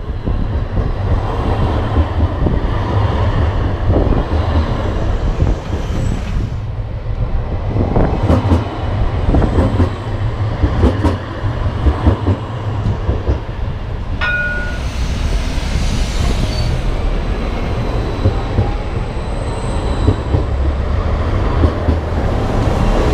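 Edinburgh's CAF Urbos 3 trams running past at close range on street track: a steady rumble, a run of sharp knocks in the middle, and a short high tone about fourteen seconds in.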